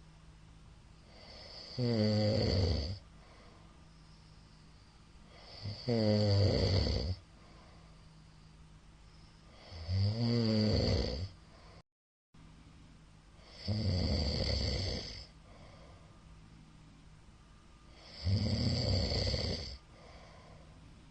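A middle-aged man snoring loudly in his sleep: five snores about four seconds apart, each lasting over a second, with quiet breathing between them. Midway the sound drops out completely for half a second.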